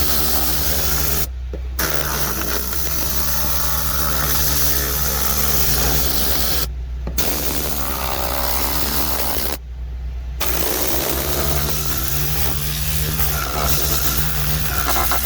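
Compressed air hissing out of a Vortex-style air cleaning gun in long blasts. The trigger is let off briefly three times: near 1.5 s, near 7 s and around 10 s. A steady low hum runs underneath.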